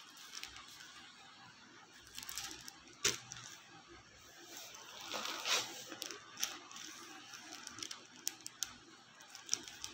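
Hands handling folded sarees: soft fabric rustling with scattered light taps and clicks, a longer rustle about halfway through.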